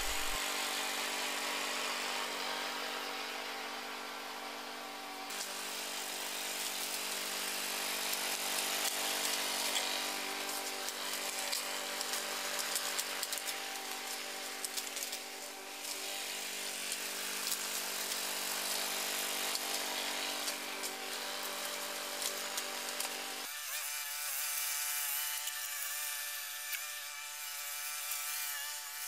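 Small petrol lawn mower engine (Sabo) running steadily at constant speed as it drives the homemade remote-controlled mower. It sounds thinner and farther off in the last few seconds.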